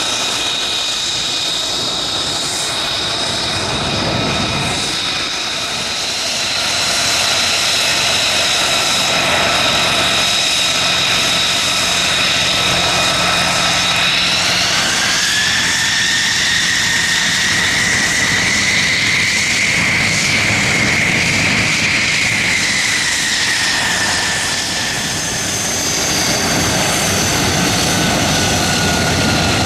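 Military jet engines running loud and continuous: a steady high whine for the first half, then a whine that rises in pitch, holds and falls again, and a new high whine near the end.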